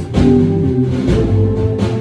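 Yamaha electronic keyboard played in a recital piece: sustained pitched notes in chords and melody over a steady beat.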